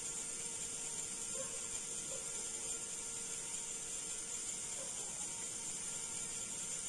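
Quiet, steady background: a high, even hiss with a faint steady hum, and a few faint short chirps.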